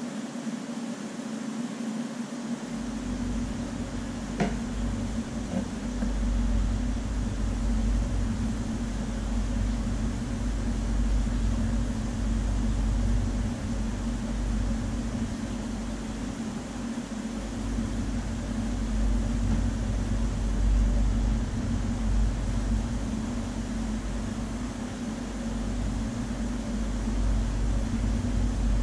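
Steady machine hum with a deep low rumble that comes in about three seconds in, and one faint click a little later.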